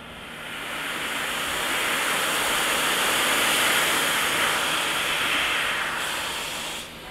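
Steam locomotive letting off steam: a hiss that swells over a couple of seconds, holds, then cuts off abruptly near the end.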